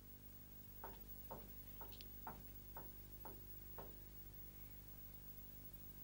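About seven footsteps on a hard floor, roughly two a second, over a faint steady hum. They stop a little before the four-second mark.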